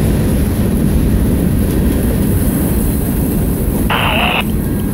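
CSX freight train's covered hopper cars rolling past with a steady low rumble of wheels on rail. A brief, higher-pitched sound comes about four seconds in, as the last car goes by.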